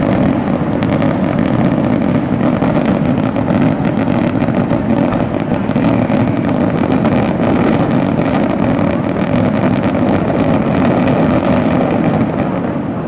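Aerial fireworks barrage: many shells and mines bursting in quick succession, their bangs merging into a continuous heavy rumble with crackling on top. It eases slightly near the end.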